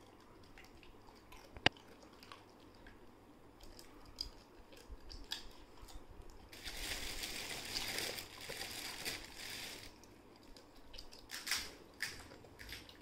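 A Labrador chewing and crunching a crisp pani puri shell: scattered short crunches and clicks, with a denser stretch of chewing about halfway through.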